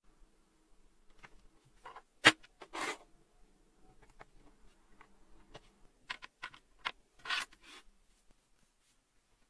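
Small metal calendar parts being handled and fitted together by hand on a wooden table: scattered light clicks and rubs, with one sharp click about two seconds in and brief scrapes a moment later and again near the end.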